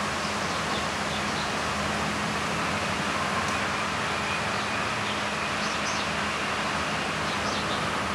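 Steady outdoor background noise: an even hiss with a low steady hum under it, and a few faint, short high chirps in the second half.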